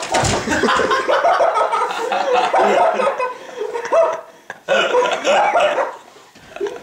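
A thump at the start as a person falls to the floor, then hearty human laughter in irregular bursts, with a short break about four seconds in.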